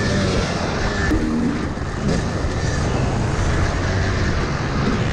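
Yamaha two-stroke motocross bike engine running hard on the track, its pitch rising and falling as the rider works the throttle.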